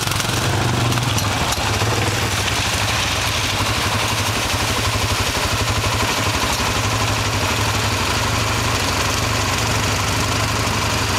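ATV engine idling steadily close by, an even low putter that holds the same pitch throughout.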